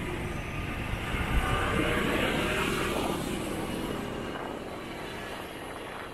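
Wind rushing over the microphone and the drone of a motorbike moving through city traffic, heard from the back seat. It swells about a second in and eases off over the last couple of seconds.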